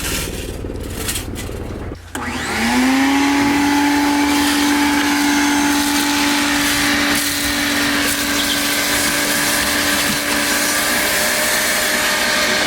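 An electric vacuum motor switches on about two seconds in. It spins up with a rising whine, then runs steadily with a loud rushing hiss.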